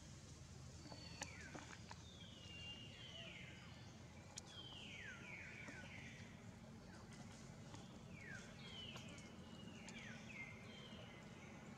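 Faint bird calls: short whistles sliding down in pitch, repeated in runs of two or three, over a quiet outdoor background with a couple of light clicks.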